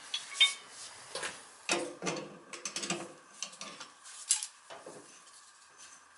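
Steel pipe fittings and a brass drain valve clinking and knocking as they are handled and screwed together at the boiler, in scattered, irregular clicks.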